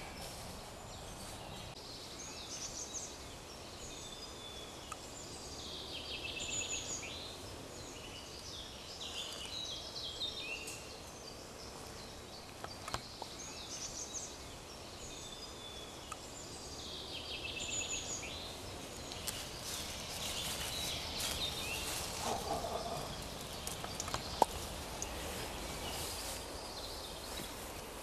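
Songbirds singing in woodland, one repeating the same short trilled phrase every few seconds. In the second half come a few sharp crackles and one louder snap, like steps on dry leaves and twigs.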